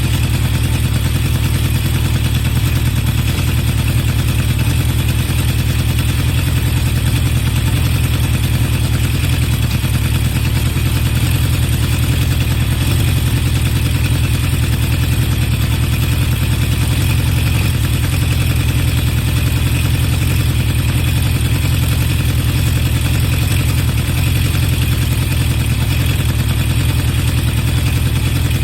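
Honda CB750 Four K3's air-cooled inline-four running steadily through a baffle-modified HM341 exhaust, a low even exhaust note with no revving. The carburettor float levels have just been reset, the over-high #3 lowered, which the owner says has all but cured its carburettor 'sneeze'.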